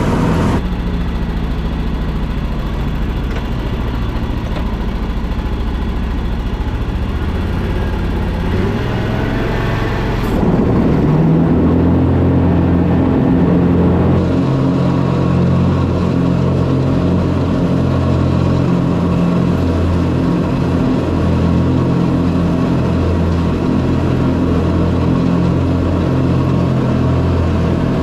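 Zero-turn riding mower's engine running steadily while mowing. The sound changes abruptly about ten seconds in and is a little louder and deeper after that.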